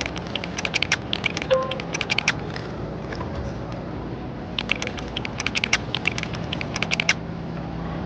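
Two runs of quick, sharp clicks and taps, the first in the opening couple of seconds and the second from about the middle to near the end, over a steady low hum.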